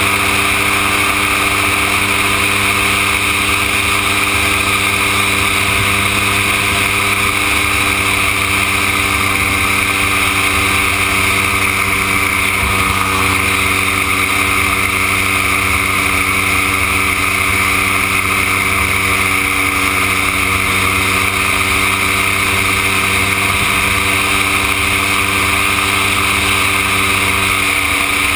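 Gyroplane's engine and pusher propeller running steadily at cruise, heard from on board: a loud, unchanging drone.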